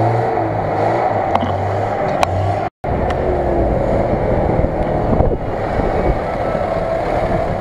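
Off-road 4x4 engines running and revving while working through deep mud. A pulsing hum in the first few seconds breaks off in a moment of silence about three seconds in, followed by a rougher low rumble.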